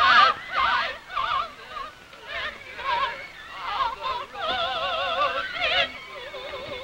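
A woman singing in an operatic soprano with a wide, wobbling vibrato, in a string of short phrases and then a longer held passage.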